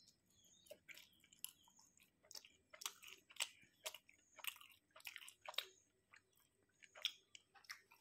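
A person chewing and biting into a sausage-and-cheese burrito close to the microphone: faint, irregular mouth clicks throughout.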